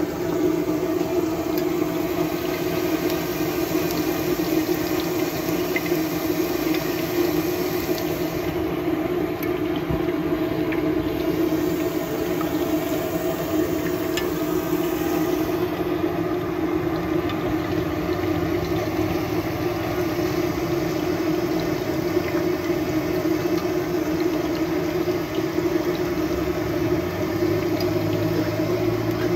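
Hot oil sizzling and crackling around skewered chicken seekh kebabs deep-frying in a wide karahi, over a steady low hum.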